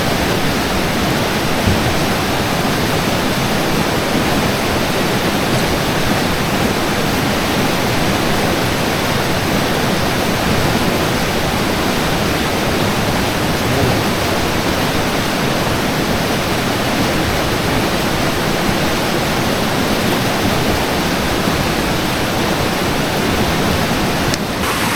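A river rushing steadily: a loud, even rush of flowing water.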